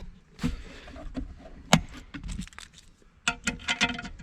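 Clicks and knocks of a steel console vault's lid and latch being handled: a single knock, a sharp click a little later, then a quick run of clicks near the end.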